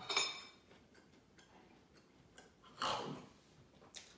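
Quiet eating sounds as an English muffin grilled cheese is bitten and chewed: a few faint clicks and soft noises, with two louder breathy sounds, one at the start and one about three seconds in.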